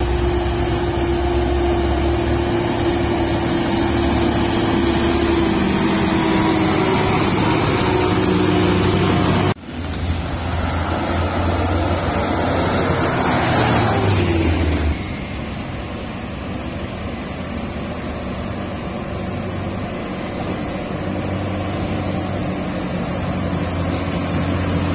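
Diesel cargo trucks running close by on a gravel road, engine drone with steady low tones. The sound cuts abruptly to a new truck about a third of the way in, where an engine revs up in pitch before the sound drops a little past halfway.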